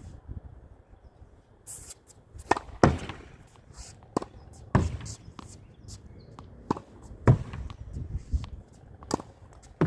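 Tennis ball being rallied against a practice wall: sharp pops of the racket striking the ball, thuds of the ball hitting the wall and bounces on the court, recurring every second or two.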